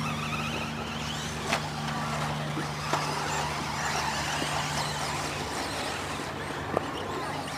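Radio-controlled off-road buggies running on a dirt track, their motors giving a high whine that rises and falls as they speed up and slow down. A few sharp knocks stand out over a steady low hum.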